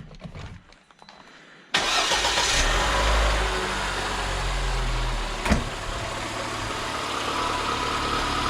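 Lada Niva 21214's four-cylinder engine comes in suddenly about two seconds in and runs steadily at idle, with one sharp click a few seconds later. No belt squeal: the alternator and power-steering pump belts have just been tightened.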